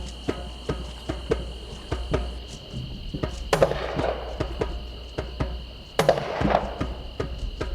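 Slow tribal percussion jam: sparse, irregular drum and stick knocks, with two louder crashing hits about three and a half and six seconds in that ring out briefly, over a steady high-pitched chirring drone.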